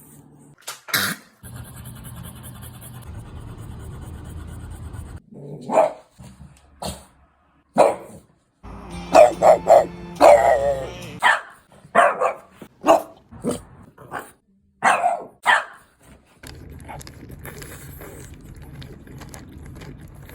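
French bulldog barking: a dozen or so short barks, single ones and quick runs of several, the busiest stretch near the middle.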